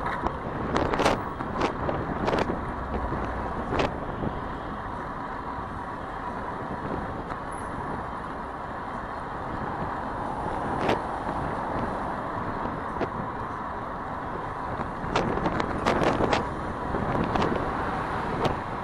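City street traffic, with cars passing, heard from a moving bicycle under a steady rush of wind and road noise. Scattered sharp clicks and knocks come in clusters about a second in and again near the end.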